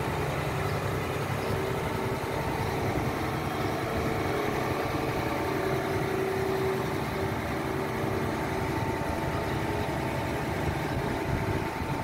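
Transit mixer truck's diesel engine idling steadily, a low hum with a few steady tones over it.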